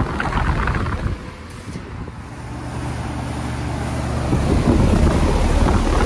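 Carrier central air conditioner's outdoor condenser unit running, its fan blowing air up through the top grille with a steady low hum. The air noise grows louder through the second half.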